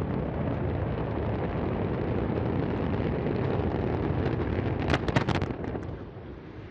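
Antares rocket launch noise: a steady, deep rumble with a cluster of sharp cracks about five seconds in, after which the sound dies down.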